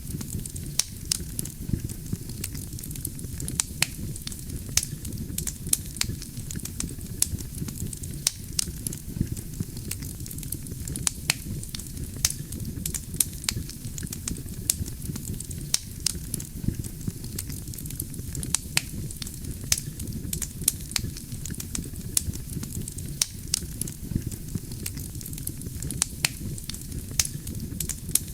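Wood campfire burning steadily: a low rumble of flame with frequent sharp crackles and pops from the burning logs.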